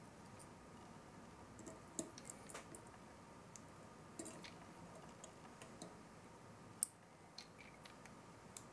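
A screwdriver and small metal mounting hardware being handled at a CPU cooler's heatsink: faint, scattered clicks and light taps, the sharpest about seven seconds in.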